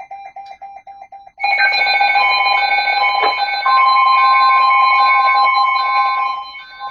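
Weather radio alert alarm: a fast pulsed electronic beep, then from about a second and a half in a loud repeating pattern of high beeps, joined by a steady tone about halfway through. The alarm breaks into the forecast broadcast to announce a new warning.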